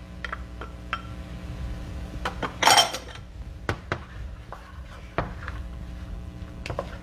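Metal cookware clinking: a pot lid and utensils knocking against a cooking pot in scattered clicks, with one louder ringing clatter about two and a half seconds in, over a steady low hum.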